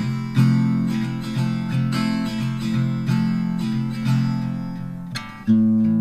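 Background music: strummed acoustic guitar chords, with a fresh loud chord about five and a half seconds in.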